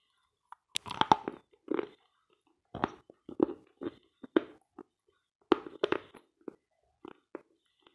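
A person biting into and chewing dense, dry "Sloyka" eating chalk. There is a sharp crunch about a second in, then a run of separate, uneven crunches roughly every half second as the chalk is ground between the teeth.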